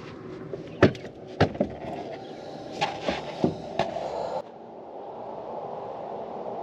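A handful of short, sharp knocks and clicks, about seven of them spread over the first four seconds, then a steady faint hiss.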